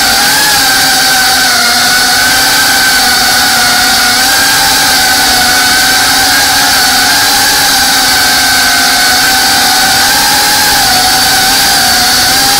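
FPV racing quadcopter's brushless motors and propellers whining, picked up by the drone's own onboard camera: a loud, steady buzz whose pitch wavers slightly up and down as the throttle changes.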